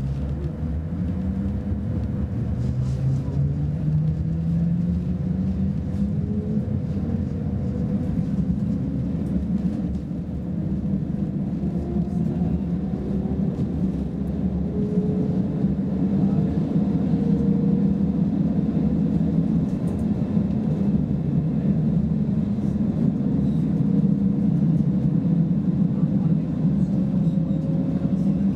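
Interior of a Roslagsbanan X10p electric train pulling away from a station: the traction motors whine, rising in pitch as it gathers speed, over a steady rumble of wheels on track.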